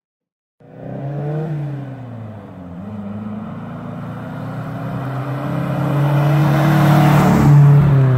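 Datsun 1200 ute's A12 four-cylinder engine revving as the truck accelerates by, starting about half a second in. After a short blip, its pitch and loudness climb steadily to the loudest point near the end.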